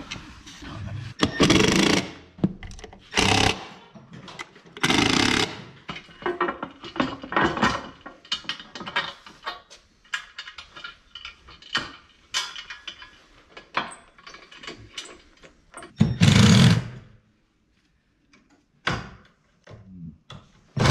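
Several short bursts of a cordless power tool driving fasteners, with clicks and knocks of metal battery-cabinet parts being handled in between.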